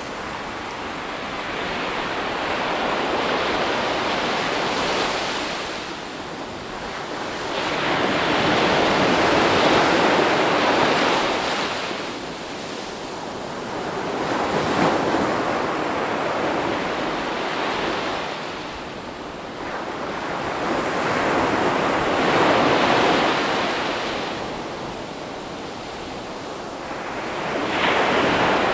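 Ocean waves breaking on a shore, the surf swelling and fading in about five surges, one every five to seven seconds.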